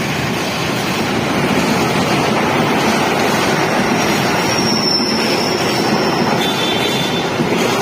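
Long-distance passenger train running past close by: a steady, loud rush of wheels and carriages on the rails. A faint high whine comes in briefly past the middle, and another near the end.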